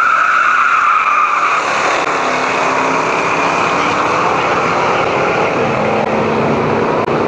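Supercharged V8 of a drag-racing Ford Lightning pickup running hard down the strip, with a high whine over the engine noise that fades after about two seconds.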